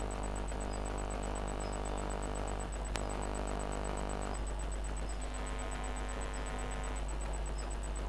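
Computer power supply running continuously on a stability test after its TL431 regulator was replaced: a steady electrical hum with a droning whir whose tone shifts twice, and a single click about three seconds in.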